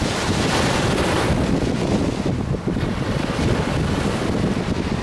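Small sea waves breaking and washing up a sandy shore, their hiss loudest at the start and easing off around two seconds in. Wind buffets the microphone with a low rumble throughout.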